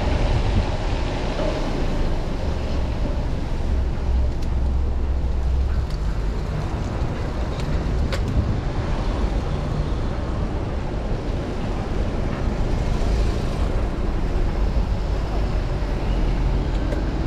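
Steady traffic noise on rain-wet city streets heard from a moving bicycle, with a heavy low rumble of wind on the microphone. A single sharp click sounds about eight seconds in.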